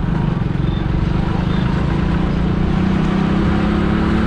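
Motorcycle engine running steadily while riding, heard from the rider's position, its pitch rising slightly near the end.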